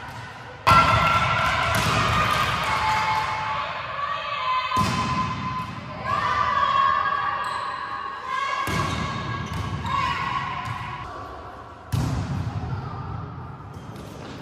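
Volleyballs being hit and bouncing on a hard gym floor, with voices echoing around a large sports hall. Four sudden loud hits come about four seconds apart.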